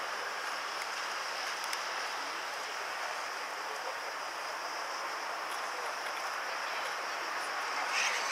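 Steady background noise: an even hiss with a steady high-pitched band above it and a few faint ticks, and a brief louder sound near the end.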